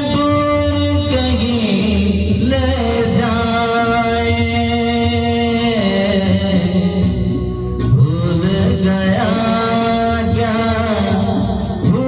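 A man singing an old song solo into a handheld microphone, holding long notes that slide between pitches from phrase to phrase.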